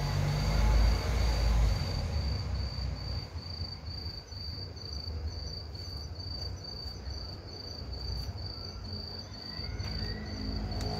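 Cricket chirping in short, even, high-pitched pulses, about two a second, over a low background rumble.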